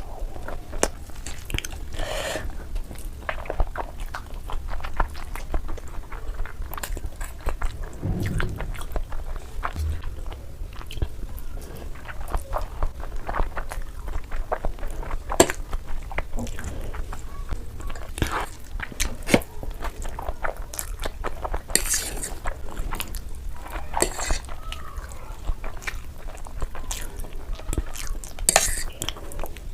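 Close-miked eating sounds: a person chewing and biting noodles, with scattered sharp clicks of utensils against dishes.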